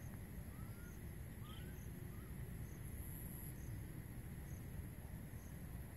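Faint outdoor ambience: a steady low rumble under a constant high insect whine, with short high insect chirps repeating a little under once a second. Two faint rising squeaks come in the first two seconds.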